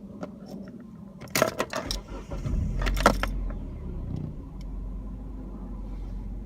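Keys rattle in the ignition of a 2005 Hyundai Elantra, then its four-cylinder engine starts about two seconds in and settles into a steady idle.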